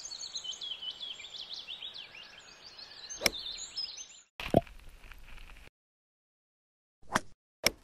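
Birds chirping, broken about three seconds in by the crisp click of a golf club striking a ball. After an abrupt cut and a short silence, two more sharp club-on-ball strikes come near the end.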